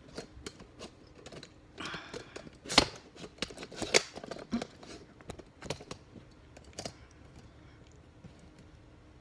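Scattered clicks, clinks and knocks of handling a stainless steel bowl of raw chicken and its contents, with two sharper knocks about three and four seconds in; the clicking thins out near the end.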